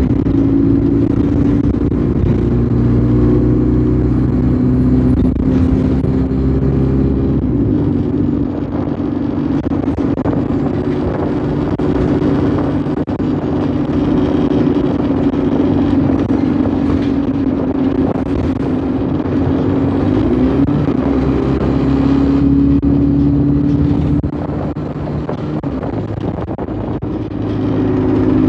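Alexander Dennis Enviro200 Dart single-decker bus under way, heard from on board: steady engine and road noise. The engine note shifts in pitch several times and gives a short rising note about 20 seconds in. About 24 seconds in it drops and goes quieter, then picks up again near the end.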